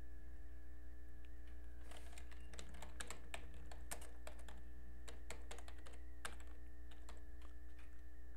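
Computer keyboard keystrokes: a run of quick typing from about two seconds in until about six and a half seconds in, over a steady low hum.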